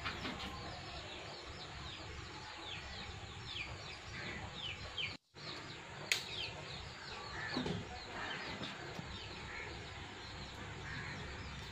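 Birds chirping: many short, quick falling chirps overlapping, over faint outdoor background noise. The sound cuts out completely for a moment about five seconds in.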